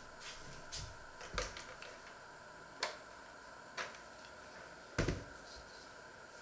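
About six sharp clicks and knocks of hand-mixer beaters being pulled out and handled against a stainless steel mixing bowl, the loudest knock about five seconds in.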